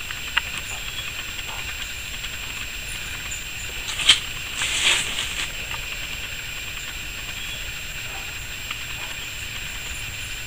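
Raccoon shifting in a wire-mesh cage trap: a sharp clack of the cage about four seconds in, then a short hiss-like burst, over a steady background hiss.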